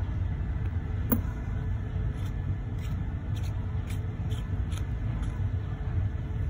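A steady low rumble throughout, with a sharp click about a second in and then a string of faint light ticks and clicks from about two to five seconds in, as a steel wristwatch is handled at its crown and turned over.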